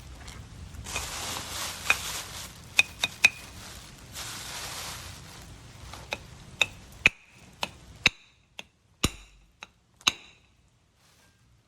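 An out-the-front knife handled and worked: two stretches of rustling or scraping, then about a dozen sharp metallic clicks, each with a brief ring, coming about every half second.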